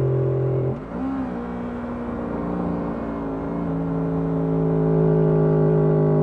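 Motorcycle engine running under way, heard from the rider's seat. Its note drops away briefly under a second in, then picks up again and pulls steadily, getting louder toward the end.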